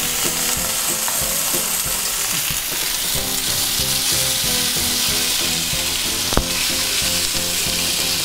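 Chorizo sausages frying in a frying pan with a steady sizzle while a fork turns them over. One sharp tap, likely the fork meeting the pan, comes about six seconds in.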